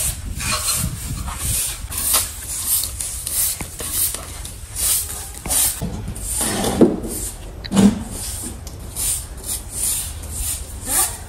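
Repeated rubbing or scraping strokes, about two a second and irregular, over a low rumble, with two louder thuds about seven and eight seconds in.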